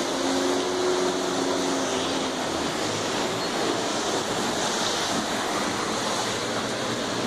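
Brown floodwater rushing along a flooded street, a steady loud rush of water. A faint steady hum sits under it for the first two seconds or so.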